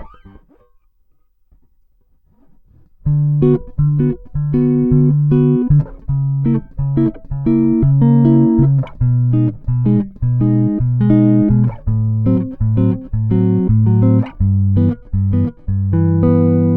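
Ibanez SR-3006E six-string electric bass through a Bartolini NTBT-918 preamp, recorded direct with no effects. A held note stops at the start, and after about three seconds of near silence comes a run of short, separate bass notes. It ends on a long held note.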